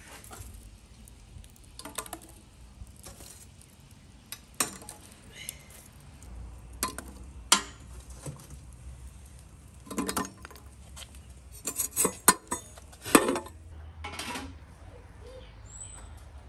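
Irregular sharp metallic clinks and clanks as the brass parts of a wood-fired samovar are handled and fitted together, loudest in a quick run of knocks a little past the middle.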